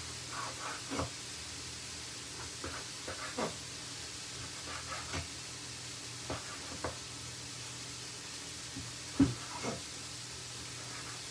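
Knife slicing through a cooked sirloin steak and knocking on a wooden chopping board: scattered soft knocks at an uneven pace, the loudest about nine seconds in, over a steady hiss.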